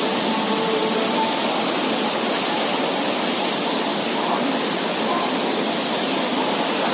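Steady rush of water pouring over a dam's spillway gates.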